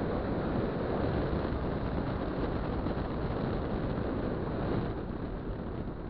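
Steady rush of wind buffeting the microphone and road noise from a scooter under way, with no clear engine note standing out; it eases slightly about five seconds in.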